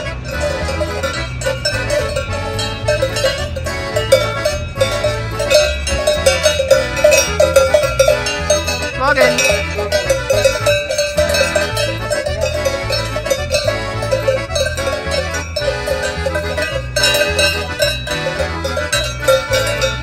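Cowbells on grazing cows clanking irregularly and continuously, over background music with a steady, repeating bass line.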